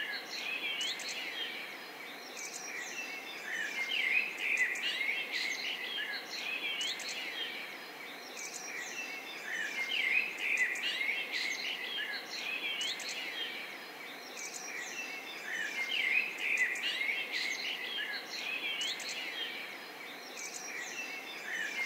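Many small songbirds chirping and calling over a steady background hiss. The calls swell in busy bursts that come round about every six seconds.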